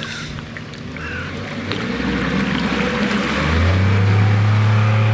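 Motorboat's Suzuki outboard motor speeding up as the boat pulls away. Its note rises over a couple of seconds, then runs steadily and loud, with the hiss of water from the wake.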